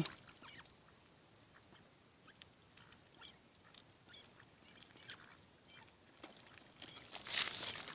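Faint scattered clicks and taps of ducks pecking and nibbling at shells, over a faint steady high hiss. The sound grows louder and busier near the end.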